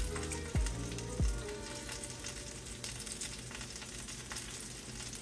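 Chicken thighs and potatoes sizzling in the rendered fat of a hot cast iron skillet, a steady hiss. A couple of low falling tones sound in the first second or so.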